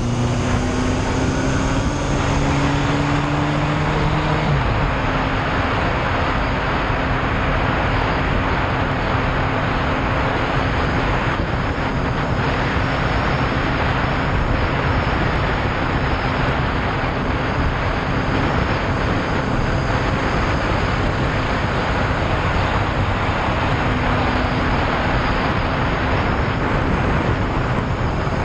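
Loud, steady wind rush over a riding Yamaha Fazer motorcycle, with the bike's engine running underneath at an even cruise. The engine note climbs slightly, then steps down about four seconds in and carries on steadily.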